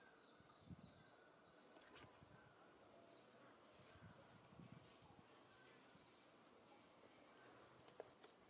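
Near silence: faint outdoor background with short, high bird chirps repeating every second or two, and a few soft low thuds.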